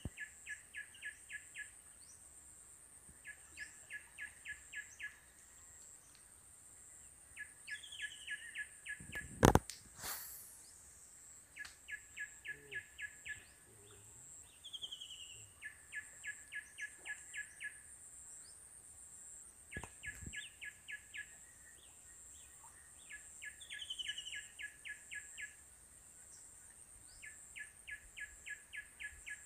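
A bird singing over and over: a short falling note, then a quick run of about eight clipped notes, repeated every few seconds, under a steady high whine. One sharp knock comes about nine and a half seconds in.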